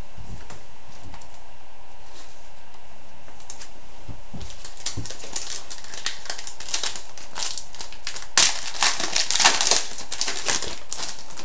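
Trading cards and their packaging being handled, with crinkling and light clicks that start a few seconds in and are thickest and loudest near the end.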